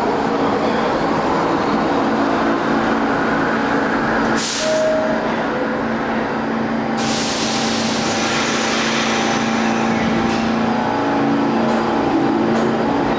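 Subway train in an underground station: a steady hum with a few held tones, and air hissing out, briefly about four seconds in and then longer from about seven seconds until it fades.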